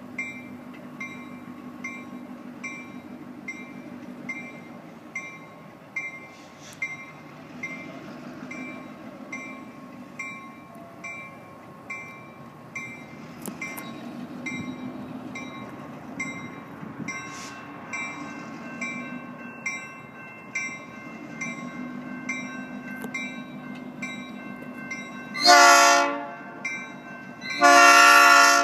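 Grade-crossing warning bell ringing steadily at about two strokes a second. Near the end an EMD GP-series 'Geep' diesel locomotive's air horn sounds two loud blasts, about two seconds apart, its warning for the crossing.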